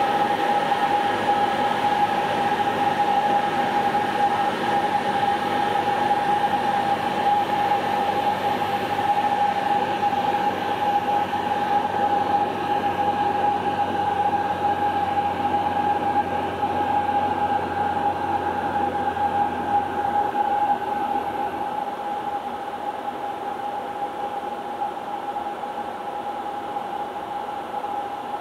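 Cessna 172's piston engine and propeller droning steadily as heard inside the cabin in flight, with a steady high tone running through it. About two-thirds of the way through the lowest part of the drone stops and the sound gets a little quieter.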